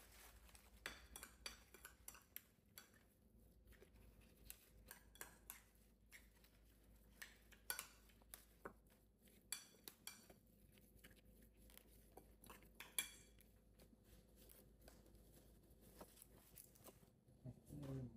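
Faint, scattered clinks and taps of kitchen utensils against dishes, irregular, with a few louder knocks.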